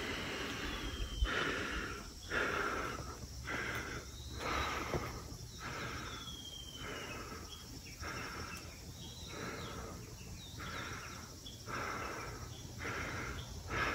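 Heavy, rhythmic breathing of a winded walker close to the microphone, about one breath a second.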